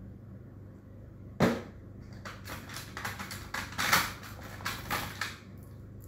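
Pens and small stationery handled against a tin pencil case: one sharp knock about a second and a half in, then about three seconds of clicks and light rattles.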